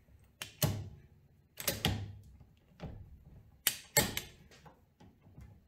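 Bluefin manual copper press tool being handled over a copper press fitting: a series of sharp metallic clicks and clanks, some in quick pairs, as the steel jaws are opened and set over the fitting.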